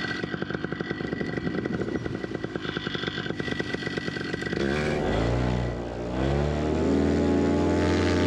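Paramotor's two-stroke engine idling with a rapid, even pulse. About five seconds in it is throttled up: its pitch rises over a couple of seconds, then holds steady at a higher speed.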